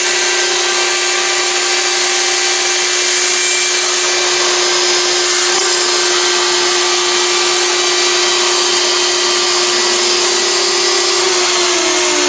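A Carbide 3D Shapeoko CNC router's spindle running as it cuts a black plastic sheet, together with a shop vacuum hose sucking up the chips: a loud, steady hiss with a steady whine. Near the end a lower tone slides down in pitch as a motor winds down.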